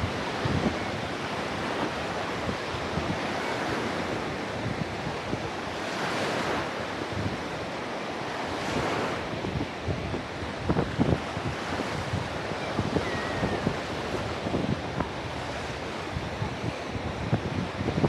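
Sea waves breaking and washing up a beach, swelling a few times, with wind buffeting the microphone in short low thumps.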